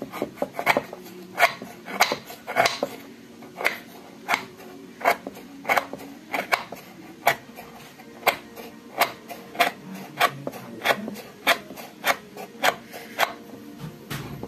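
A kitchen knife shaving a block of palm sugar (gula aren) into flakes on a wooden cutting board: a quick, regular run of short scraping strokes, about two a second, which stops shortly before the end.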